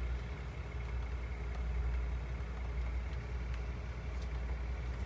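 A bus's diesel engine idling, a steady low rumble heard from inside the bus.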